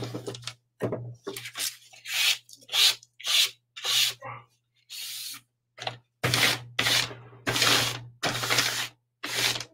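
A rubber eraser rubbing back and forth over watercolour paper, erasing pencil lines, in a quick run of short scrubbing strokes, about two a second.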